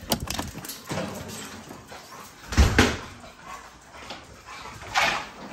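A dog whimpering and giving a few short barks, with the loudest pair of sounds about two and a half seconds in.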